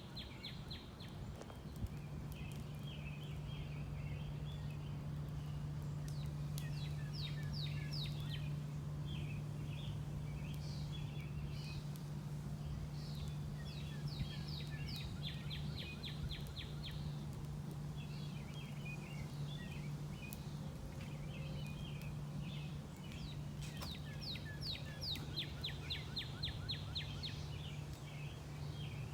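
Birds singing: repeated phrases of quick chirps and trilled notes every few seconds, over a steady low hum.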